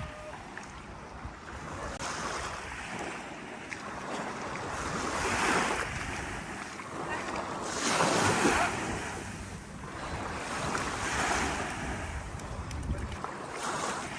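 Small sea waves washing onto a sandy beach, the sound of surf swelling and fading about every three seconds, with wind rumbling on the microphone.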